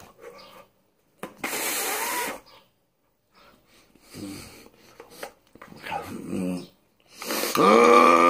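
A man's wordless vocal noises: a breathy hiss, then a few short grunts, then a loud, drawn-out growl that starts near the end.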